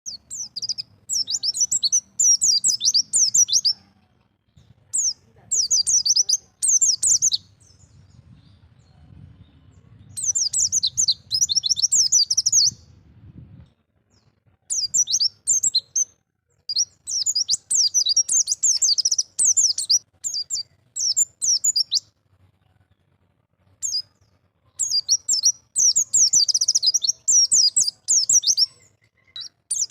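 White-eye (pleci) singing a wild-style 'ngalas' song: rapid, high twittering phrases of one to three seconds each, broken by short pauses.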